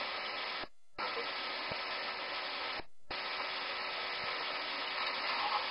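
Steady hiss of cockpit background noise on a DC-9's cockpit voice recorder during engine start, with a faint steady hum beneath. The recording drops out briefly twice, just under a second in and about three seconds in.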